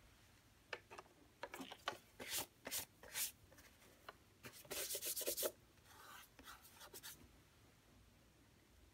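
Gloved hands picking up and turning over a Drobo Mini storage enclosure: a string of rubs, scrapes and light knocks against its casing, loudest in a dense stretch of rubbing about five seconds in, then dying away.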